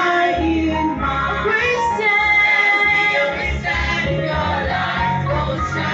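Mixed choir of women's and men's voices singing a gospel hymn together through handheld microphones.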